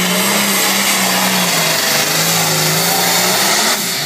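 Diesel engine of a John Deere pro stock pulling tractor running flat out under load as it drags the sled, its pitch sagging slightly and recovering. Near the end the engine note drops off suddenly as the throttle is let off at the end of the pull.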